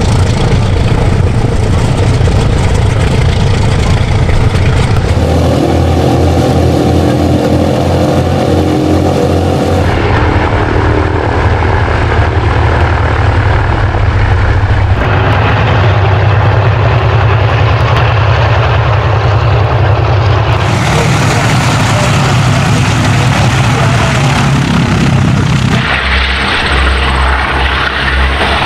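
Boeing B-29 Superfortress's four Wright R-3350 radial piston engines running steadily and loud, propellers turning as the bomber taxis on the ground. The sound changes abruptly every few seconds where the footage cuts from one clip to the next.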